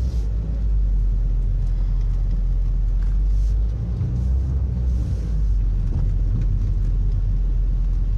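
Low, steady rumble of a Ford Fiesta driving slowly, heard from inside the cabin: engine and tyre noise.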